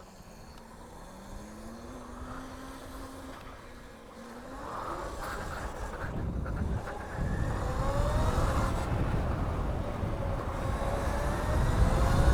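Electric motor whine from a modded e-scooter being ridden. A low whine rises and dips at first, then from about five seconds in a higher whine climbs in pitch as it speeds up, with wind rumble on the microphone growing louder.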